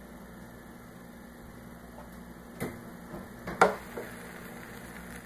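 Brushed-steel lid of a Cadence Sapore 1500 grill sandwich press being handled and shut, with a light knock about two and a half seconds in and a louder one a second later, over a steady low hum.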